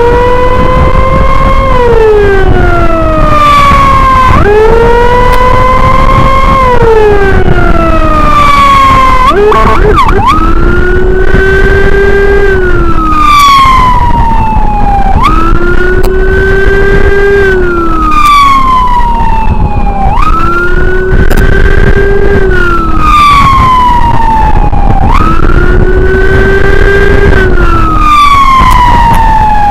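Electronic siren wailing in a repeating cycle about every five seconds: a quick rise, a held high note, then a slow fall. A steady low rumble runs underneath.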